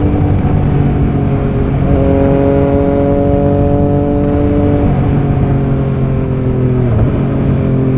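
Triumph Trident 660's inline three-cylinder engine running under way, its note holding steady with small shifts in pitch: a slight rise about two seconds in, a drop to a lower note about five seconds in, and a brief dip near the end.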